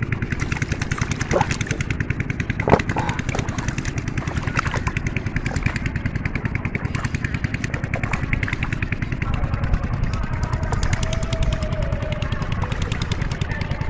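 A small engine running steadily at an even, rapid beat, with a few sharp knocks over it.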